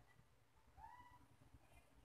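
Near silence: room tone, with one faint, distant pitched call, rising then falling, about a second in.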